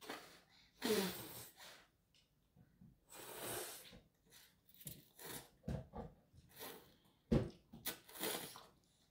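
A small child slurping instant noodles, a run of short noisy slurps and breaths, some drawn out for about a second. Twice, about a second in and near the end, a slurp carries a brief falling pitch.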